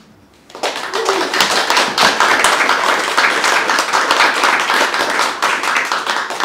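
Audience applauding, a dense patter of many separate hand claps starting about half a second in.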